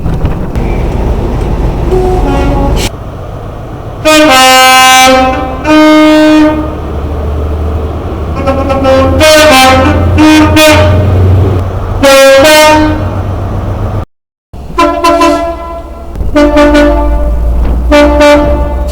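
Two-tone air horns of British trains, sounding in a string of short blasts on a lower and a higher note, over the low rumble of a diesel engine. Near the middle the sound cuts out for a moment and another train's horn follows with more short blasts.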